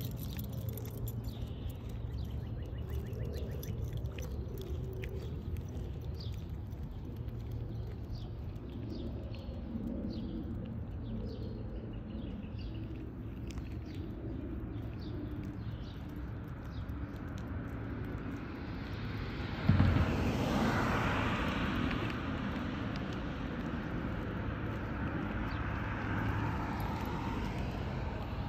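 Roadside outdoor ambience: a steady low traffic rumble with scattered small chirps and ticks. About twenty seconds in, a louder rush of noise starts suddenly and fades away over several seconds.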